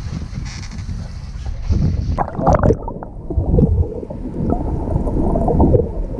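Wind and water noise, then from about two seconds in a muffled underwater bubbling and gurgling as the camera's microphone goes under the sea surface.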